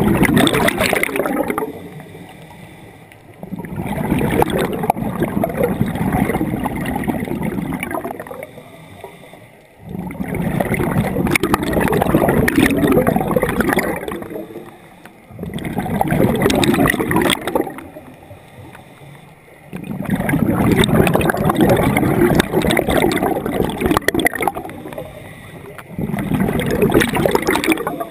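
Scuba diver's regulator breathing underwater. Exhaled bubbles come in bursts of bubbling a few seconds long, about every five seconds, with quieter gaps between breaths.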